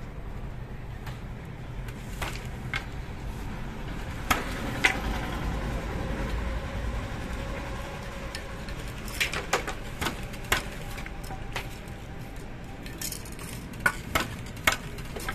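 Scattered light wooden clicks and knocks from a traditional wooden handloom as the warp threads and wooden pattern sticks are handled, with three sharper knocks close together near the end.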